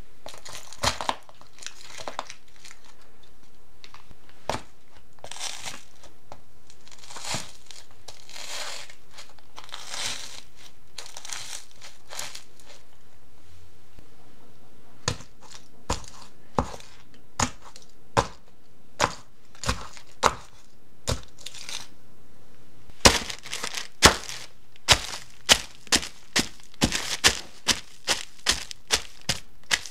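A stiletto high heel crushing foil-wrapped chocolates and then a plastic bag of white powder. At first there is soft crinkling and crunching of foil. From about halfway there is a quick run of sharp cracks and clicks as the heel strikes, which grows louder and faster near the end.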